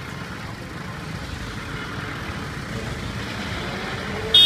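Street traffic at a busy junction: vehicle engines idling and running under a steady traffic noise. Near the end comes one short, loud horn beep.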